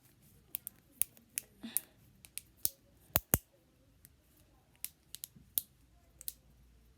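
A sheet of paper being handled, folded and creased by hand: about fifteen sharp, irregular crackles and snaps, the loudest two close together about three seconds in.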